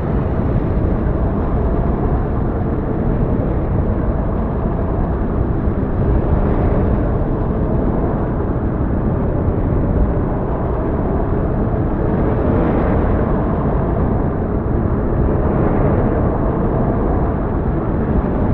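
Steady, low rumbling noise of a snowfall ambience recording, given as snow falling on branches and the ground, swelling slightly a few times.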